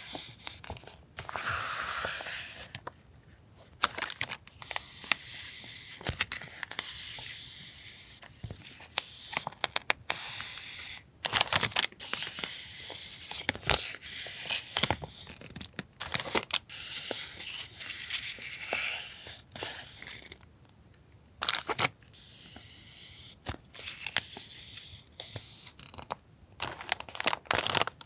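Sheets of decorative paper and their packaging being handled: rustling and crinkling, with many sharp little clicks and a couple of brief pauses.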